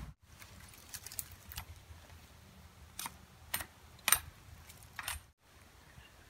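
A machete striking a thin bare branch in a series of irregular sharp chops, about seven in all, the loudest a little past the middle.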